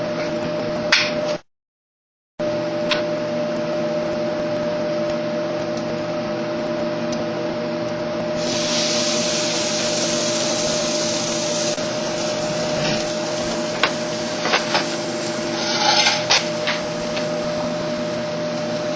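A steady whirring fan or motor hum with a few sharp clicks. The sound cuts out completely for about a second near the start.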